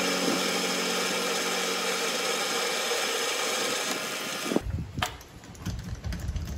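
Vevor MX 400 mini lathe running with a steady motor hum and hiss, stopping abruptly about four and a half seconds in, after which only low rumble and a few light clicks remain.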